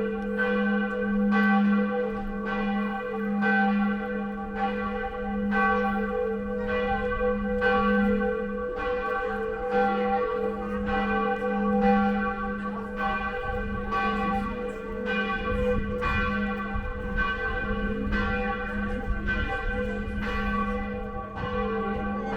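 A large church bell tolling steadily, about one stroke a second, its deep hum ringing on between strokes.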